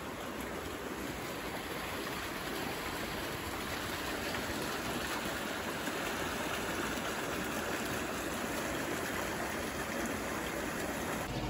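Hot-spring water running steadily through a street drain and gutter: a continuous rushing of water that grows slightly louder over the seconds.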